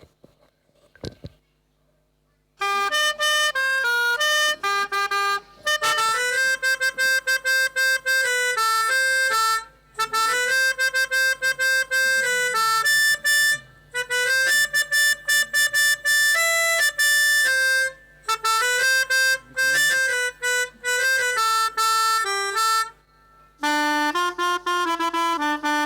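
Pianika (melodica) playing a telolet basuri bus-horn tune: a melody of held notes separated by short breaks, starting after about two and a half seconds of near silence.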